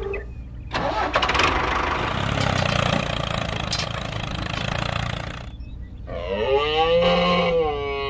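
A small engine-like noise starts about a second in and runs for about four and a half seconds. Near the end a pitched sound comes in, its pitch wavering up and down.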